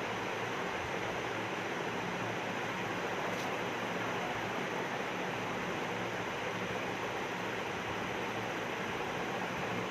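Steady, even background hiss with a faint low hum; no sneeze or other distinct event.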